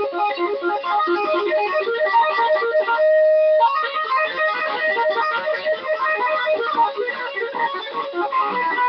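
Ibanez RG1527 seven-string electric guitar with Seymour Duncan Full Shred 7 pickups, played in fast runs of short single notes, with one note held for about half a second near three seconds in.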